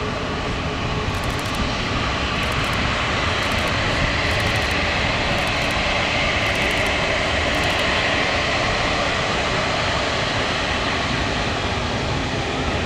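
Boeing 747-8's four GEnx-2B turbofan engines running as the jumbo jet turns on the runway: a steady jet rumble with a whine that swells for a few seconds in the middle.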